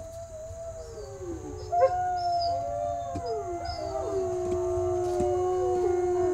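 A pack of wolves howling in chorus, several long gliding howls overlapping at different pitches. More voices join about two seconds in and the chorus gets louder.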